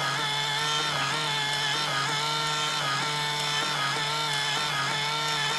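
A small motor running steadily with a whine of several tones whose pitch wavers in a regular pulse about twice a second.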